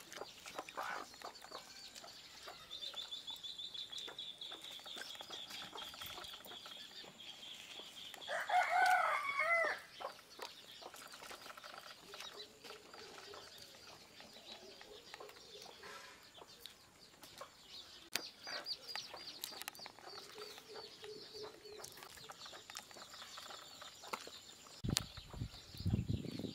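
A rooster crows once, about eight seconds in, the loudest sound. Before it a small bird trills rapidly and high for a few seconds, with faint hen clucks now and then and a low bump near the end.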